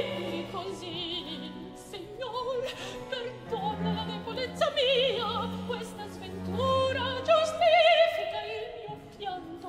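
Baroque opera singing: a high male voice sings phrases with a wide vibrato over a period-instrument orchestra holding sustained low notes.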